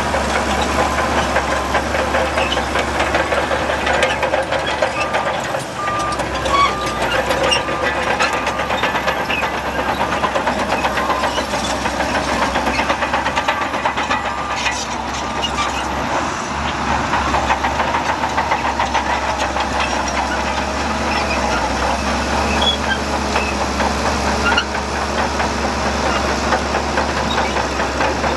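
Heavy diesel earthmoving machinery running steadily, with frequent short metallic clanks and rattles over the engine noise.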